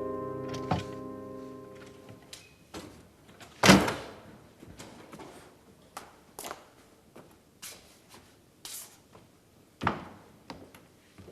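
A held brass-like music chord dies away in the first two seconds, followed by scattered sharp knocks and clicks, one much louder thud about four seconds in and another near the end.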